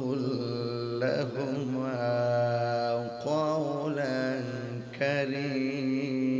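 A man's voice singing a Bengali gojol (Islamic devotional song) in long, drawn-out held notes, amplified through a stage microphone. The voice breaks briefly about three seconds in and again about five seconds in, then carries on.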